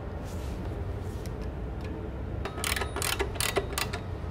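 Ratchet wrench tightening the bolts of a conveyor precleaner's steel mounting bracket: a quick run of sharp metallic clicks about two and a half seconds in, with a few fainter clicks before, over a low steady hum.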